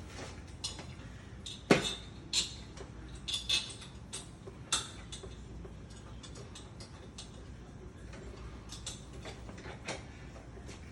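Small metal parts and tools clicking and clinking as they are handled, typical of lock hardware being worked on. A sharp knock comes about two seconds in, a run of clinks follows, and the clicks thin out later on.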